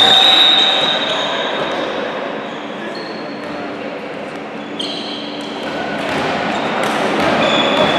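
Echoing sports-hall noise from a girls' volleyball game: players' voices and movement on the court, a few high squeaks and some ball thumps.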